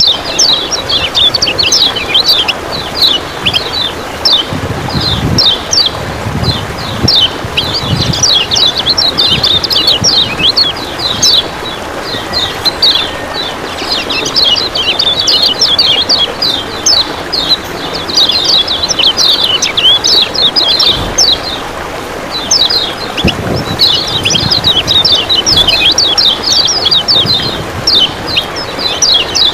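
Kecial kuning white-eye singing fast: rapid high chirping phrases in bursts with short pauses, over a steady rush of water.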